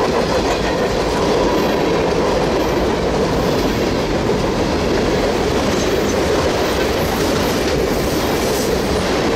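Freight cars of a passing train, covered hoppers and a tank car, rolling by: the steady noise of steel wheels running on the rails, without letting up.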